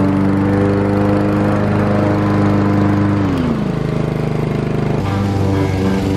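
Honda HRR216VYA mower's 160cc engine running steadily. A little past three seconds in, one tone slides down in pitch as the blade-control bail is let go and the Blade Stop clutch disengages the blade while the engine keeps running. About five seconds in the sound changes abruptly to the mower running as it cuts grass.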